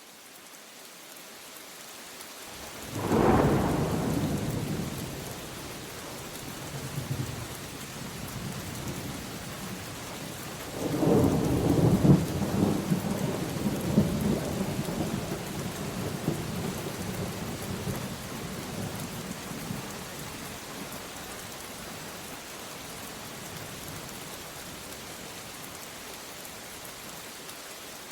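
Steady rain with two peals of thunder. The first is a sudden crack about three seconds in that rumbles away over a few seconds; the second is a longer, crackling roll starting about eleven seconds in that rumbles down over some seven seconds. The rain fades in at the start.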